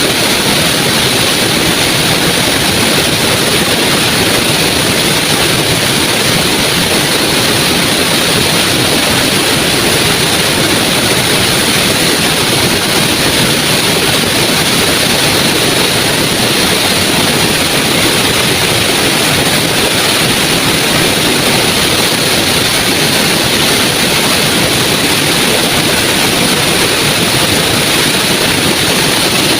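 Small waterfall with a steady, loud rush of falling water, unbroken throughout.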